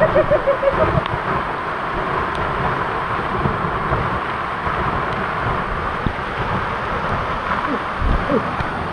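Steady rush of a waterfall, with wind buffeting the microphone.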